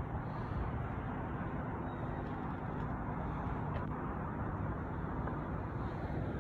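A steady, even low rumble with no distinct events.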